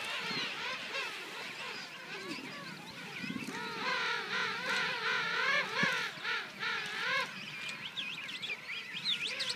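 Chorus of penguins calling across a colony: many overlapping warbling, wavering calls, loudest from about four to seven seconds in. A short, low pulsed rumble comes just after three seconds.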